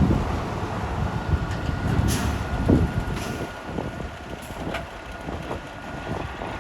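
A heavy truck's engine running, with a short hiss about two seconds in.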